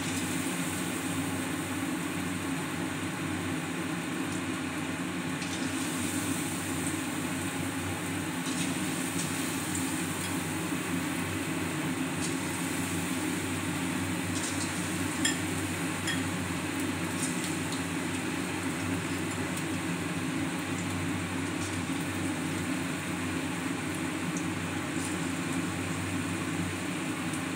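Coated chicken pieces deep-frying in hot sunflower oil in a stainless-steel kadai: a steady sizzle with scattered pops and crackles.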